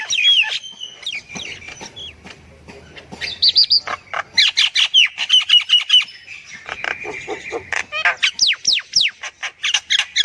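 Myna bird calls: quick runs of whistled and harsh notes, many sliding downward in pitch, coming in bursts with short pauses between them.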